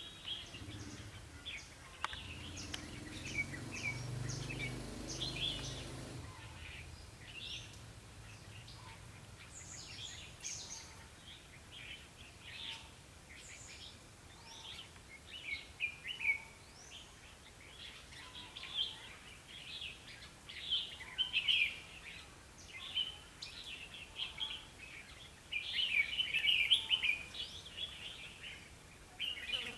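Red-whiskered bulbuls singing and calling in short, bright chirpy phrases, one after another, growing busier near the end. A low rumble lies under the first few seconds.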